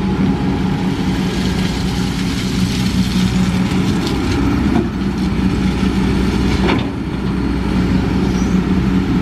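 Kobelco SK200 hydraulic excavator's diesel engine running steadily under load as it digs a bucket of gravel and swings, with one short knock about two-thirds of the way through.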